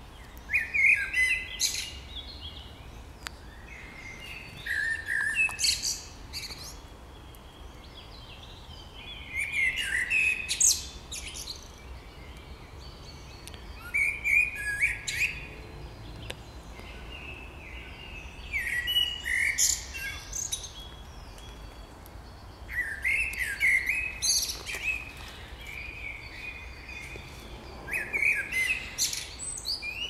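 A songbird singing in spring woodland: a short, quick phrase of chirps and trills repeated seven times, one every four to five seconds.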